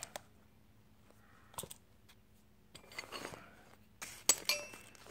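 Old rusty steel hand tools clinking against each other as they are picked up from a pile, a few sharp clinks with a brief metallic ring about four seconds in, after a single click and some soft handling sounds.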